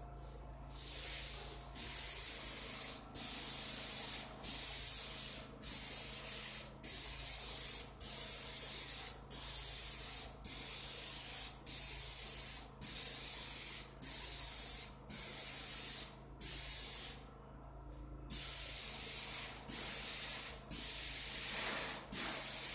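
Airless paint spray gun spraying a wall in repeated strokes: a hiss that lasts just over a second, stops briefly and starts again, about seventeen times, with one longer pause near the end.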